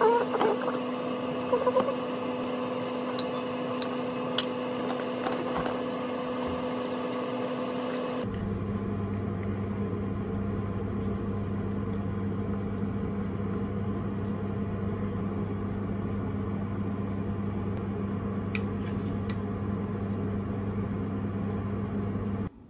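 Steady electric hum of a kitchen appliance running, its pitch dropping lower about eight seconds in, with a few faint clicks.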